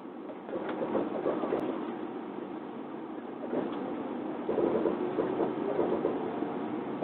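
Kintetsu limited express train pulling away after a stop, heard from inside the car: steady running noise with a wavering mechanical whine that swells about half a second in and again from about three and a half seconds.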